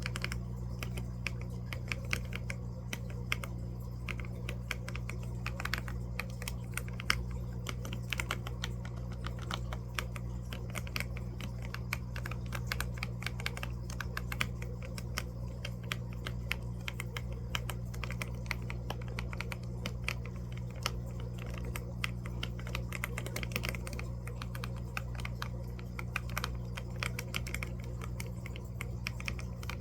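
Computer keyboard typing: a continuous run of irregular key clicks. Underneath runs a steady low hum from fish tank equipment.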